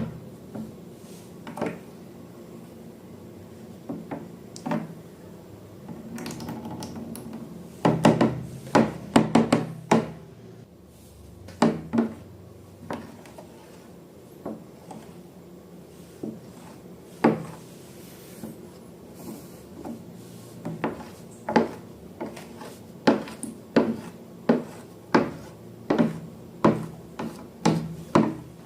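A series of sharp knocks and taps, with a busy cluster about eight seconds in. In the last third the taps fall into a steady run of about two a second.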